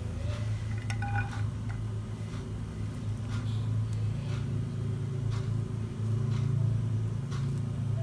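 Light clinks and scrapes of silicone-tipped tongs and a spatula against a wok and a plate as fried rice vermicelli is lifted out and served. A steady low hum runs underneath.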